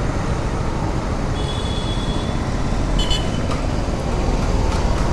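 Kawasaki Z900's inline four-cylinder engine idling with a steady low rumble.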